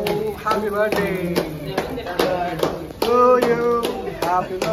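A group clapping hands in a steady rhythm, about three claps a second, with several men's voices over the claps.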